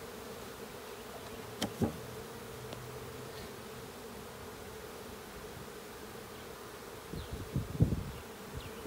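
A swarm of honey bees buzzing in a steady massed hum as they move into a hive box that holds their queen. A sharp tap comes about two seconds in, and a few low knocks near the end.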